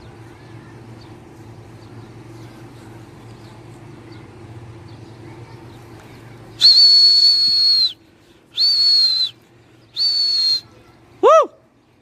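A pigeon keeper whistling loudly to his flock: three long, steady, high-pitched blasts starting a little past halfway, then a short rising-and-falling call. The whistling signals the circling pigeons to turn back.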